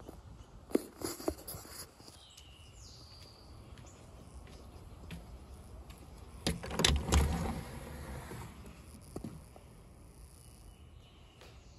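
A key working a front-door deadbolt and the door being opened: a cluster of clicks and knocks about halfway through, after a few lighter clicks near the start, over a faint steady chirr of insects.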